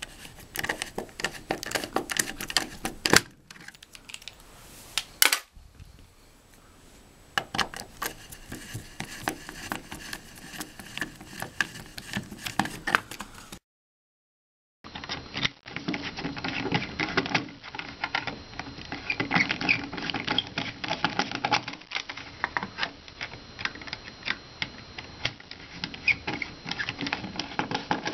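Rapid irregular small clicks, taps and rattles of hands and a tool working at a thermostat's plastic wall plate, its screws and wires, as it is taken off the wall. There is a brief dropout about halfway through.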